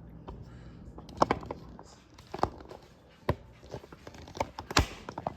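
Handling noises from a plastic MacBook case being worked on during cleaning: a string of irregular sharp clicks and knocks, loudest a little over a second in and again near the end.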